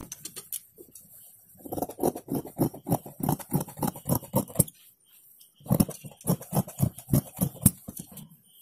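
Large tailor's scissors cutting along a chalk-marked curve through four-fold blouse fabric. The snips come in quick succession in two runs, with a pause of about a second in the middle.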